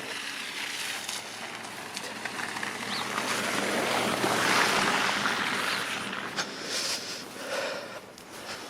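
A vehicle driving past through slush and snow: a tyre hiss that swells to its loudest about halfway through and then fades away.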